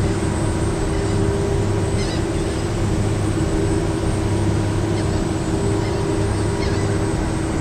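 Steady drone of the ferry's engine with wind noise, plus a few faint gull calls about two, five and nearly seven seconds in.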